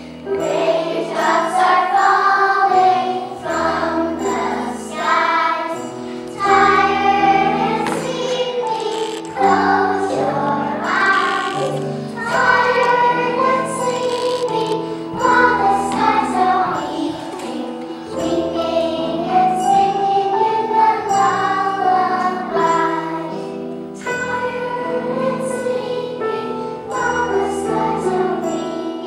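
A choir of young children singing a song together, with sustained low instrumental notes underneath.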